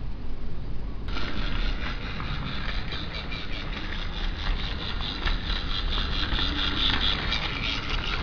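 Small toy train motor whirring steadily with a fast rattle, switched on suddenly about a second in.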